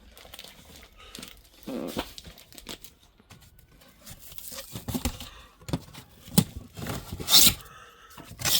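Handling noise: irregular rustling, crinkling and light knocks, with a louder harsh scrape about seven and a half seconds in.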